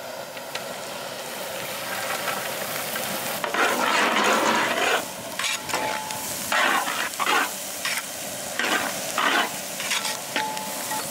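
Chopped onions sizzling in hot melted butter in a large metal cooking pot, with a louder rush of sizzling a few seconds in as they go into the fat. Then a long metal ladle stirs and scrapes them around the pot, about two strokes a second.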